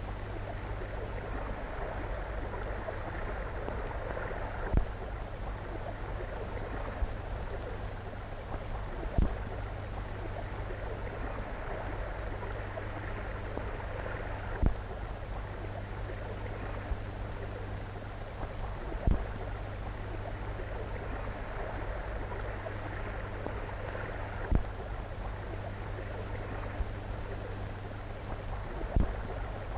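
Steady hiss and low hum of an old optical film soundtrack, the hiss slowly swelling and fading, with a soft thump about every five seconds and a few fainter clicks.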